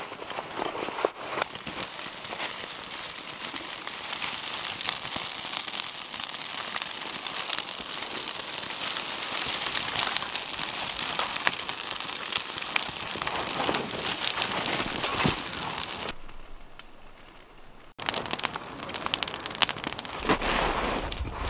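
Campfire of birch bark and dry twigs catching and burning, with a dense crackle of small pops. The crackle fades and breaks off after about sixteen seconds, then starts again abruptly and louder.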